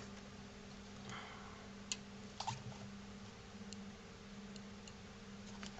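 A few faint, sharp clicks and taps of the plastic headphone earcup and back plate being handled and fitted together, over a steady low hum.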